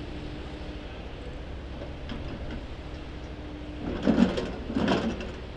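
JCB tracked excavator's diesel engine running steadily while it moves displaced rocks back against the sea wall. Two scraping clatters of stone come about four and five seconds in.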